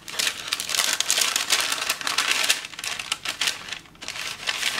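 Blue paper packet being opened and unfolded by hand, its paper rustling and crinkling in a dense run of crackles that eases briefly about two-thirds through.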